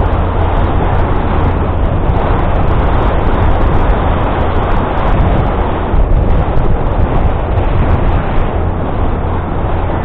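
Wind buffeting the microphone of a camera on a moving bicycle: a loud, continuous rumble that swells and eases a little.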